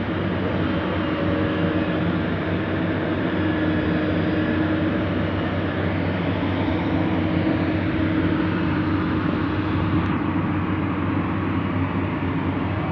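Diesel engine of a JCB JS200SC excavator running steadily under working load, a constant engine hum with a steady tone over it.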